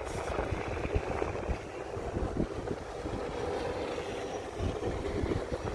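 Snowstorm wind gusting against the microphone, an uneven low rumble over a steady rush of outdoor noise.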